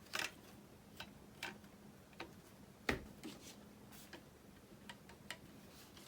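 Scattered light plastic clicks and taps from handling an RC transmitter with its newly fitted thumb-steering adapter, at an uneven pace, the sharpest about three seconds in.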